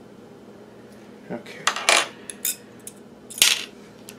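Short sharp metallic clinks and clicks of small hand tools and parts being handled on an electronics workbench. A cluster comes from about a second in, and the loudest single clink is about three and a half seconds in.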